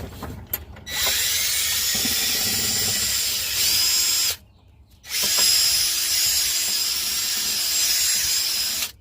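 Power drill spinning a brass wire brush inside a car battery cable connector, scrubbing off corrosion. The brush runs in two spells of about three and a half seconds, with a brief stop between them.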